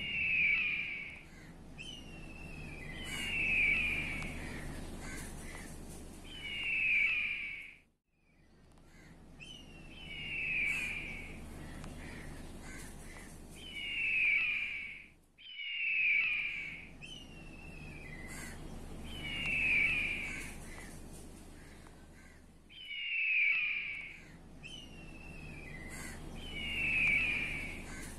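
A bird calling harshly over and over: about nine loud calls, one every three to four seconds, each led by a short thin falling note. The sound cuts out abruptly for a moment about every seven and a half seconds.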